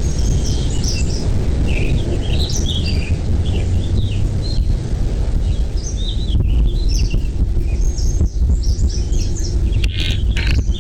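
Birds chirping: many short, high chirps, scattered throughout, over a steady low rumble.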